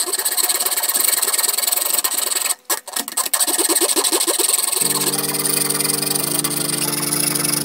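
Small hacksaw cutting through a printed circuit board, a continuous back-and-forth rasp with a brief break about two and a half seconds in. From about five seconds a steady held chord of background music plays under the sawing.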